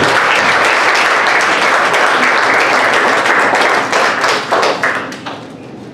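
Audience applauding, the dense clapping thinning to a few scattered claps about four to five seconds in and then dying away.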